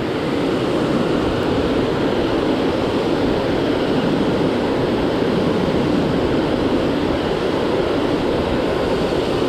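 Steady rush of river water spilling over and below a dam.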